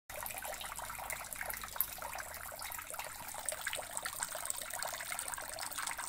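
Small homemade fountain running: a thin stream of water falls from a plastic-bottle spout and splashes steadily into a shallow plastic tub of water over pebbles.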